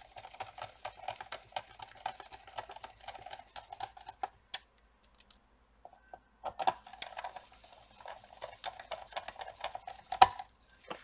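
Small hand screwdriver driving screws into a laptop's plastic bottom cover: a fast run of light clicking and scraping. It stops for about two seconds midway, then goes on, with a sharper knock near the end.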